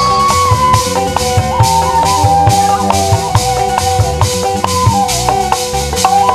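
Live Sundanese ethnic percussion ensemble playing: a held, slowly sliding melody line over a steady drone, with drum strokes and a shaker keeping a quick, even beat.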